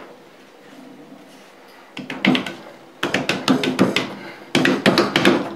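Bridgeport rotary table's cast-iron top being turned and shifted by hand on its base: three bursts of metal-on-metal scraping and clicking, about two, three and four and a half seconds in.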